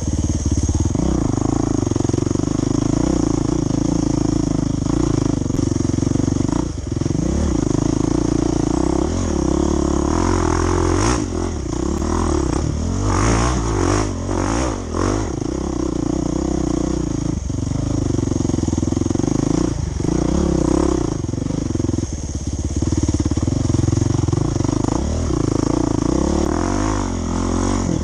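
Off-road dirt bike engine running under load as it is ridden, the revs rising and falling with the throttle. There is a cluster of knocks and rattles about halfway through.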